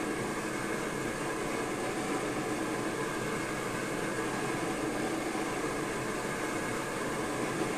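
Borde self-pressurizing white-gas (naphtha) stove burning at full output under a pot of water, with a steady, unbroken hiss of the burner flame.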